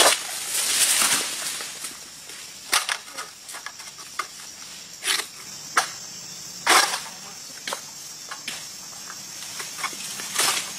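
Insects drone steadily on a high note, with short, irregular scrapes and rustles from an oil palm harvesting sickle pole (egrek) working among the palm's frond bases.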